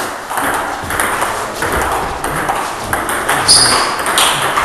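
Table tennis ball being struck again and again, sharp clicks off bats and table tops.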